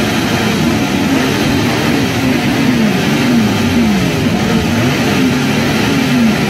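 Many motorcycle engines running together, several being revved at once, their pitches rising and falling over one another.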